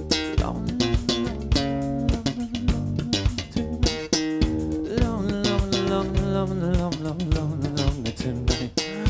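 Live heavy-funk rock band playing an instrumental passage, with electric bass guitar and electric guitar over a steady drum-kit beat. A melodic line with bending notes comes in about halfway through.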